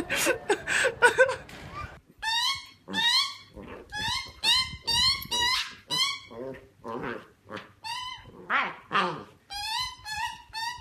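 Corgi puppy yapping: a run of about a dozen short, high yips, each sweeping up in pitch at the start, with a few lower barks near the end.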